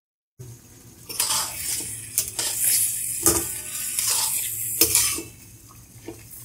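Metal spatula scraping and stirring beef and tomatoes in a metal karahi, in irregular strokes with clinks of metal on metal, over a light sizzle. It starts about half a second in.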